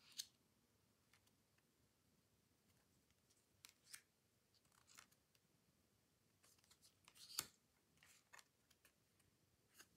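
Faint, brief swishes and taps of glossy oracle cards being slid off a deck one at a time and laid on a cloth-covered pile, a handful of times.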